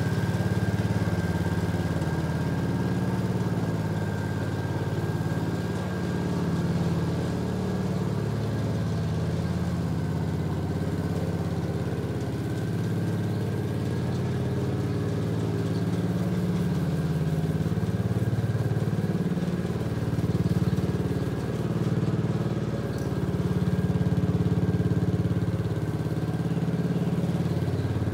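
Small gas engine of a walk-behind machine roughing up lawn turf, running steadily as it is pushed across the grass, with a faint steady high whine above the engine hum. The sound swells and dips a little as the machine moves.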